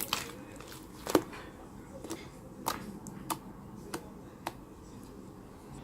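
Slime being squished and pressed by hand, giving sharp, irregular pops and clicks every half second or so, the loudest a little over a second in.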